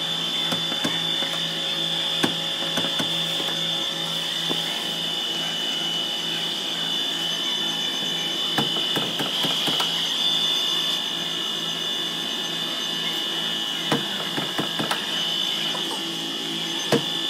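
A steady high-pitched whine over a low hum, with scattered clicks and knocks of a hand tool against a car door.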